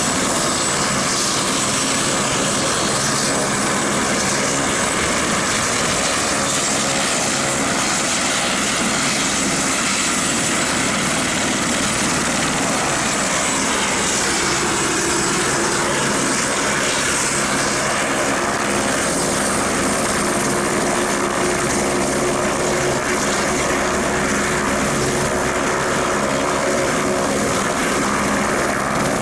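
Aircraft engines running steadily, with a thin high whine over a dense noise that holds its level throughout.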